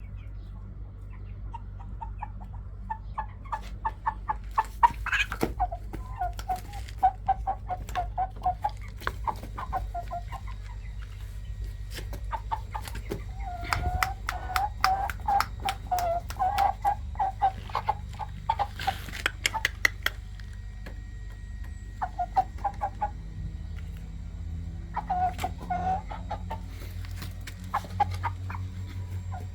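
Fighting chicken, a Korean–Shamo cross, clucking in runs of quick, short notes, with scattered sharp clicks and a steady low hum underneath.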